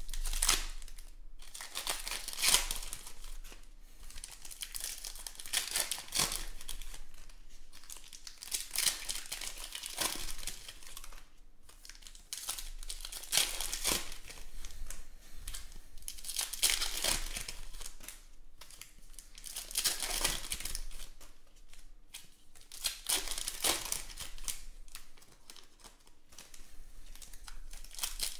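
Foil wrappers of Panini Contenders football card packs being torn open and crinkled by hand: a run of irregular crinkles and tears.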